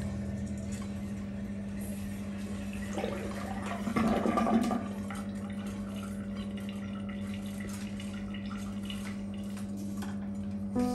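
Water running and splashing during a tortoise's bath, louder for a second or two about four seconds in, over a steady low hum.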